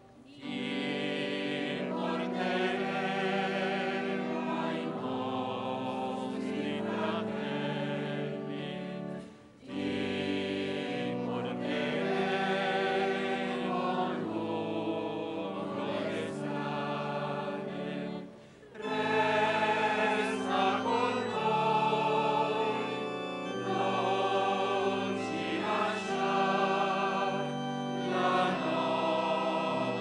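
Choir singing sacred music in long held notes, breaking off briefly twice, about a third and two thirds of the way through.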